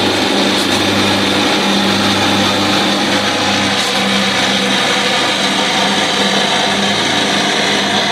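Lawnmower engine running steadily and loud.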